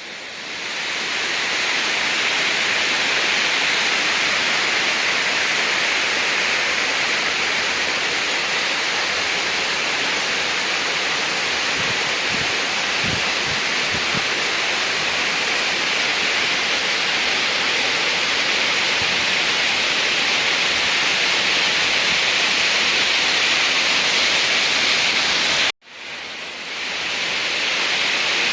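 Steady rushing of falling water from the Dzykhrinsky waterfall, a dense hiss-like roar. It cuts out abruptly about 26 s in and swells back within a second.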